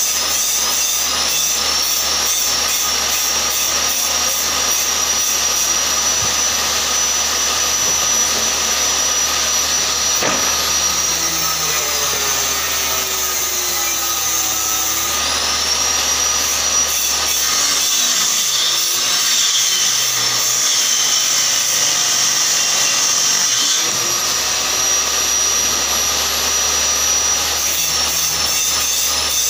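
Table saw running steadily with a high whine. Twice the pitch sags as the blade slows under a cut, then climbs back as the cut ends.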